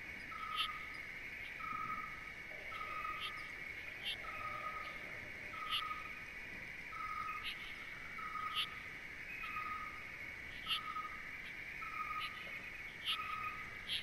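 An owl calling: a short, even-pitched note repeated steadily a little more than once a second. Insects chirr constantly underneath, and short, sharp high squeaks come every second or two.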